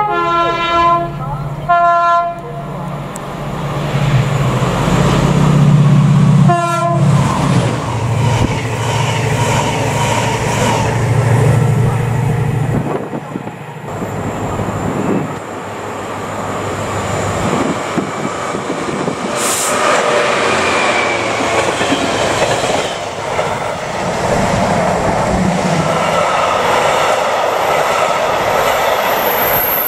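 A Class 68 diesel-electric locomotive sounds its two-tone horn as it approaches, gives a second short blast about seven seconds in, and its engine runs steadily as it passes. After that, a container freight train passes at speed, its wagons rumbling and clattering over the rails.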